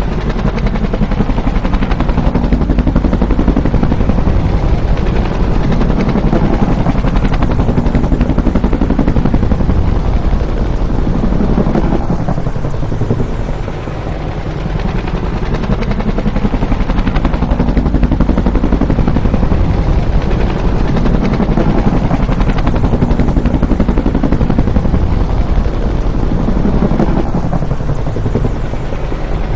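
Bell UH-1 "Huey" helicopter running close by: a fast, continuous chop of its two-bladed main rotor over the turbine's noise, swelling and easing in slow waves with a brief dip about halfway through.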